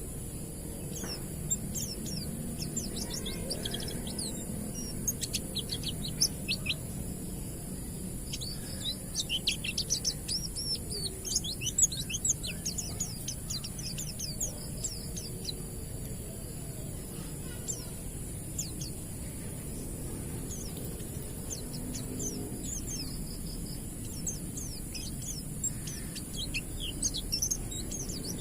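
A white-eye (pleci) singing its 'ngalas' song: bursts of quick, thin, high chirps and twitters, busiest about a third of the way in and again near the end, over a steady high hiss and a low rumble.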